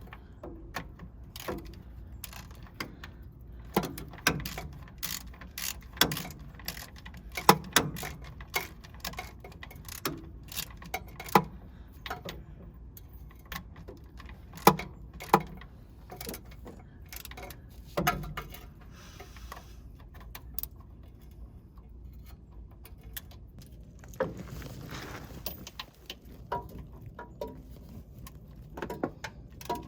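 Hand tools clinking and knocking against metal as the mounting bolts of an old standard-shift starter are tightened: irregular sharp metallic clicks, some louder than others, with short runs of ratcheting.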